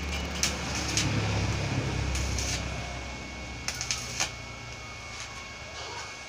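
Electric arc welding on a galvanized steel tube window grill frame as its joints are full-welded: a steady crackling hiss over a low hum, with a few sharp pops, easing slightly in the second half.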